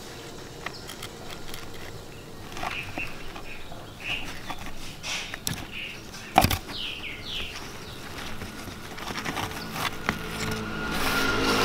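Soft crackling and rustling of rice-husk and soil potting mix as hands pull apart aglaonema stems, with a single sharp click about six seconds in as a small knife cuts between the stems. A few short bird chirps sound behind it, and a motor vehicle starts to be heard near the end.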